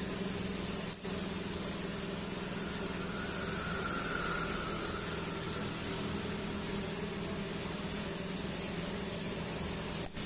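Steady electrical hum with an even hiss from a TIG welding setup, unchanged whether the arc is lit or not, with two brief dropouts, about a second in and just before the end.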